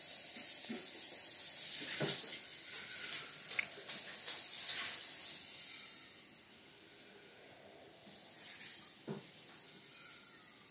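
Rubbing and hissing handling noise from a hand holding and turning over a pocket watch, louder in the first half and again briefly near the end, with a few small clicks.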